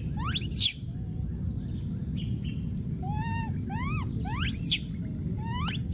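Baby monkey calling over and over: high screeches that sweep sharply up in pitch, about half a second in and twice near the end, with shorter arched and rising calls between them, over a steady low rumble.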